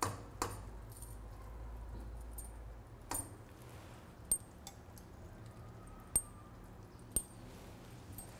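Metal fork and serving spoon clicking against each other and the rim of a stainless steel pot as baked tilapia is flaked into risotto: about six short, sharp clinks at uneven intervals.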